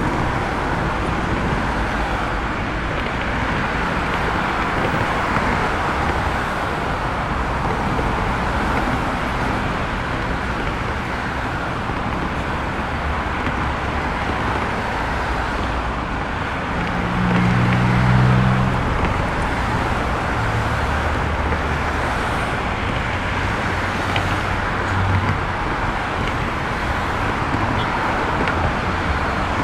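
Steady street traffic: a continuous wash of car engines and tyre noise on the road. A little past halfway, one nearby engine hums louder for a couple of seconds, then fades back into the traffic.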